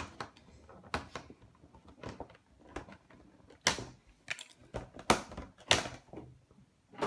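Cardboard and plastic packaging being handled: a string of clicks and scrapes, with a few louder rustling scrapes in the middle, as promo cards are worked out of a tight-fitting insert.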